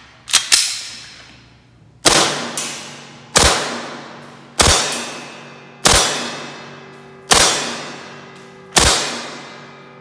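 KLI Baba Yaga 5.1 CO2 blowback airsoft pistol. About half a second in there are two quick clicks as the slide is racked and released. Then it fires six single shots, one every second and a bit, each a sharp crack with a ringing tail.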